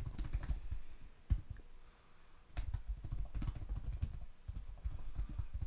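Typing on a computer keyboard: quick runs of keystrokes, with a pause of about a second near the middle before typing resumes.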